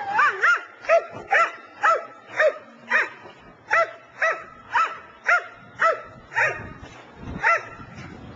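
A 12-month-old protection-trained dog barks repeatedly, about two barks a second, guarding a pickup truck. The barks pause briefly about three seconds in and stop near the end.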